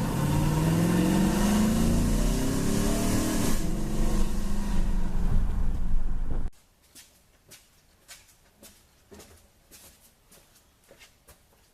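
Chevrolet 5.3-litre V8 with a Texas Speed stage 2 cam and ported heads running and being revved, its pitch rising for a few seconds and then dropping back. The engine sound cuts off suddenly about halfway through, leaving only faint clicks and knocks.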